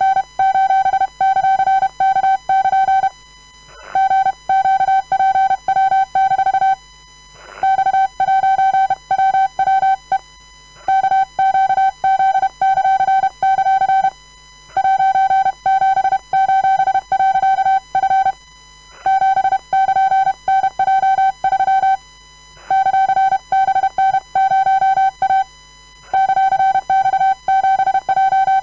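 Hand-sent Morse code at a comfortable speed: a steady beep keyed on and off in dots and dashes, spelling random letters, numbers and punctuation, in runs broken by short pauses every few seconds.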